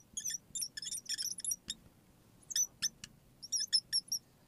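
Marker squeaking against the writing board in quick, short, high strokes as words are written, in two bursts with a pause of about a second between them.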